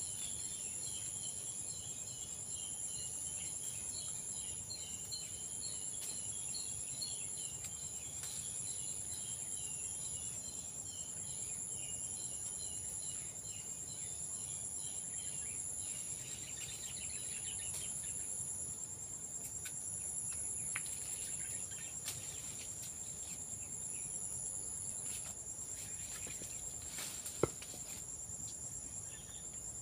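Insects chirring steadily in two high-pitched tones, the higher one pulsing on and off every couple of seconds. Quick chirping notes run through the first half, and a single sharp click comes near the end.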